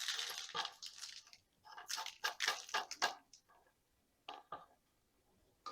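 Small bonsai pot being cleaned off by hand: two short runs of scratchy scraping and rubbing, then a few light clicks and taps as it is handled.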